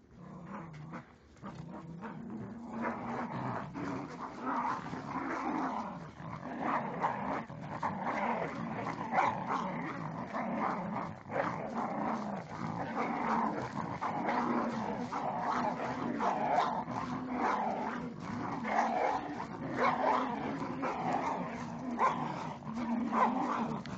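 Small fluffy dogs growling at each other in a scuffle: continuous, rising-and-falling growls with a few yips. The growling builds over the first few seconds and then keeps going without a break.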